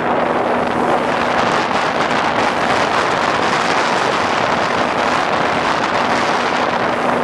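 Steady wind noise buffeting the microphone on a small boat under way across choppy water, with the faint steady hum of its Yamaha 9.9 two-stroke outboard running underneath.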